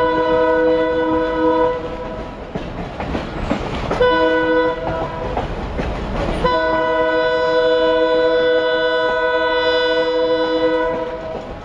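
Multi-tone train horn sounding in blasts from the train: a long blast ending about two seconds in, a short blast about four seconds in, then a long blast of about four and a half seconds, the pattern of a grade-crossing signal. The train's running rumble on the rails fills the gaps between blasts.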